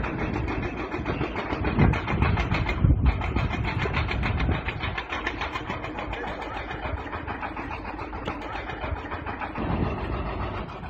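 Excavator diesel engine running steadily with a fast, even rattle, briefly cutting out just before three seconds in.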